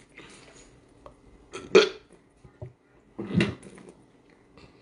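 A man with a mouthful of raw octopus makes two short, loud burp-like noises from the throat, about a second and a half apart, with faint mouth sounds between.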